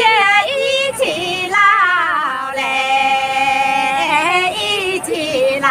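Unaccompanied Guangxi shan'ge (folk song) sung by a woman in a high voice. Short gliding phrases give way to a long, wavering held note from about halfway through.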